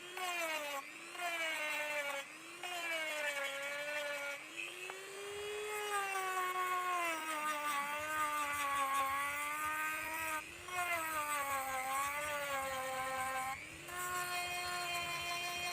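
A small high-speed electric motor whining, its pitch sagging and recovering again and again, with a few brief stops along the way.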